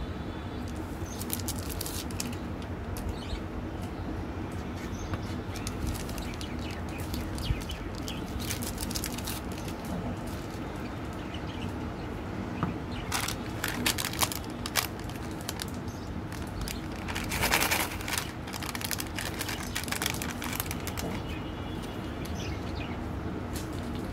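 Foil wrappers on chocolate-coated wafer bars crinkling and tearing as they are unwrapped by hand, in short bursts of crackle, loudest in the middle, over a steady low background hum.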